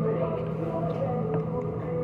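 Restaurant dining-room background: piped music and indistinct chatter over a steady low hum.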